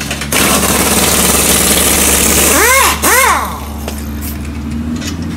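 Pneumatic impact wrench hammering on a bolt under the rear of a car for about three seconds, then two short bursts, each rising and falling in pitch as the air motor winds up and down.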